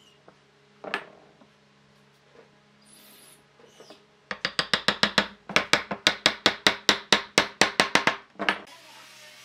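Hammer tapping a glued softwood cross-lap joint home: one knock as the pieces are set together, then a fast, even run of about twenty strikes, about five a second. Near the end a cordless drill starts a steady whir.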